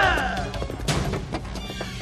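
Fight scene sound: a man's pained cry trailing off at the start, then punch and body-hit impacts about a second in, over a background music score.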